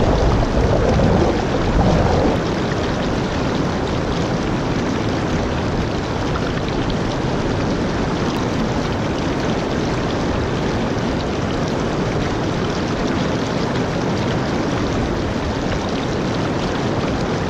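River rapids rushing over and around boulders close to the microphone: a loud, steady rush of white water, a little louder in the first two seconds.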